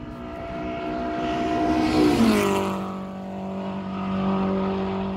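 BMW M3 race car passing at speed: its engine note grows louder to a peak about two seconds in, drops in pitch as it goes by, then carries on as a steady lower note as it pulls away.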